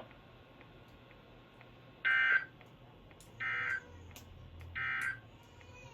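Three short electronic data bursts from a NOAA Weather Radio broadcast, each about a third of a second long and about a second and a half apart, the first the loudest. These are the SAME end-of-message codes that close the station's weekly test.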